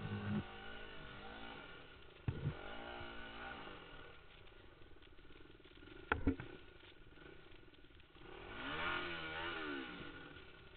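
Kawasaki trail bike engine revving in repeated bursts, rising and falling, while the rider struggles on a steep, muddy climb. There is a sharp clunk about six seconds in, and a last long rev near the end.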